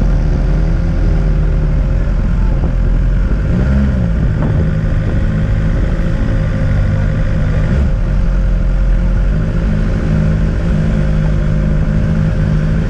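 Motorcycle engine running at low speed in low gear, with a short rev about four seconds in.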